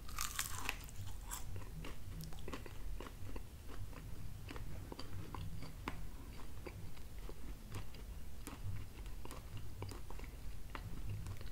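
Close-up bite into a slice of thin-crust pizza, with a crisp crunch just at the start, followed by steady chewing with many small mouth clicks.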